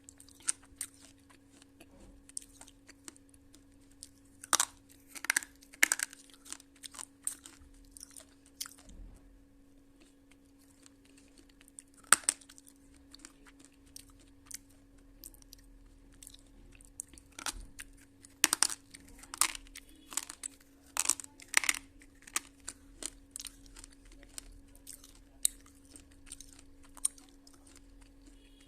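Slate pencils being bitten and chewed close to the microphone: sharp, irregular crunches, with a lull of a few seconds about a third of the way in and a denser run of crunching after it. A faint steady hum runs underneath.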